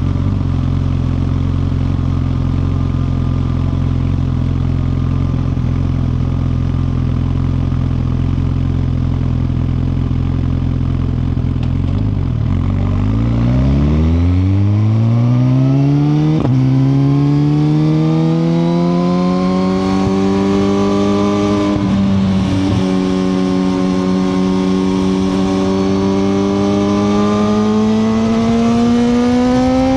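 2021 Suzuki GSX-R1000R's inline-four engine holding a steady low note for about twelve seconds, then revving up as the bike pulls away, with quick upshifts breaking the rising pitch twice, after which it keeps climbing.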